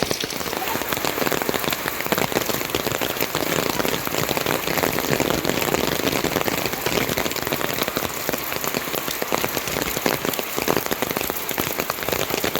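Heavy rain falling steadily: a dense, even patter of countless drops hitting surfaces.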